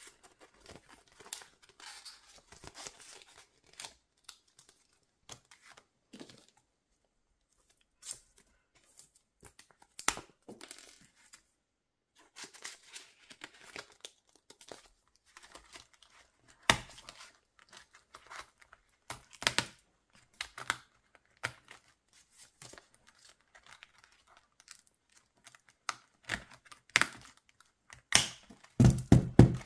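Clear plastic binder pockets rustling and crinkling as paper cards are slid in and out, with scattered clicks and taps. A cluster of louder knocks comes near the end.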